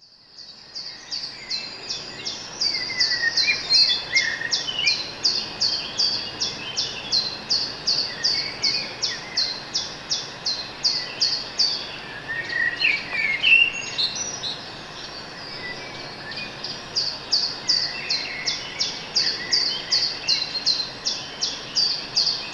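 Outdoor nature ambience of birds: a fast, even series of high chirps, about two or three a second, with other bird calls in between. It fades in at the start and the chirping breaks off for a couple of seconds in the middle.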